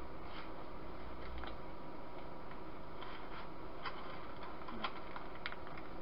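Quiet room tone: a steady hiss with a faint steady whine, and a few faint small clicks in the second half.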